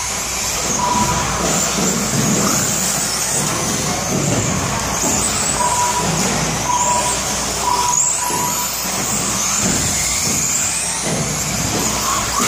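Electric 4WD RC buggies racing on a carpet track: high motor whines rising and falling as the cars accelerate and slow, over the rush of tyres on carpet. Short steady beeps sound several times.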